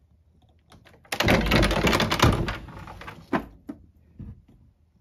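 A loud scraping clatter starting about a second in and lasting under two seconds, followed by a few light knocks.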